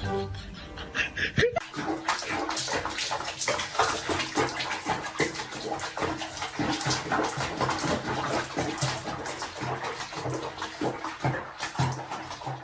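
Water running and splashing, a steady hiss with many small splashes, starting about a second and a half in.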